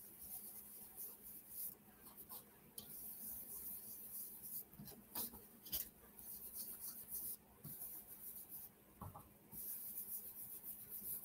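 Ink blending brush rubbed in repeated short strokes across cardstock: a faint, soft scratchy brushing.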